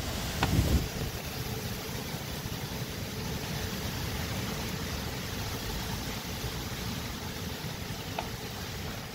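Steady rush of wind and rain from a severe derecho thunderstorm, with a gust buffeting the microphone about half a second in.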